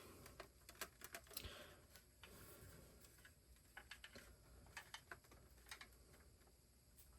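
Near silence with faint, scattered small clicks and taps: stripped wire being handled and pushed into a smoke alarm's push-in terminals.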